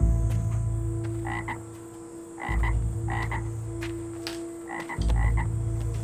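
Frogs croaking at night, short calls mostly in pairs, several times, over a deep droning rumble that swells again about every two and a half seconds.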